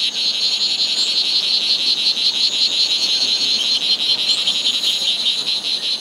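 Male strawberry poison dart frog calling: a steady, rapid train of high-pitched buzzing chirps. This is its advertisement call, made with the vocal sac inflated to attract a female.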